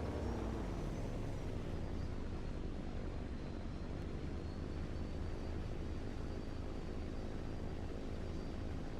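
A steady low rumble, with a faint thin high whine above it.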